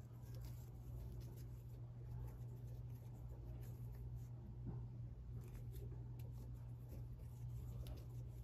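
Faint scratching and rubbing of a 2 mm crochet hook working crochet thread, with small scattered ticks, over a steady low hum.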